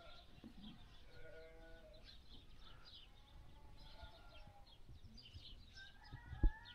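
Faint bleating from a flock, several separate calls overlapping. A single low thump sounds near the end.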